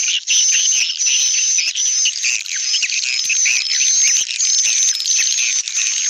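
Recorded edible-nest swiftlet lure sound: dense twittering and chattering of swiftlets with a high chirp repeating about twice a second. It is a stereo mix of a 'calling' track and a 'roosting' track, made to draw swiftlets into a swiftlet house.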